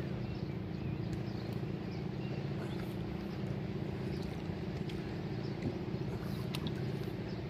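Small outrigger boat's engine running steadily, a low, even hum, with a few faint clicks over it.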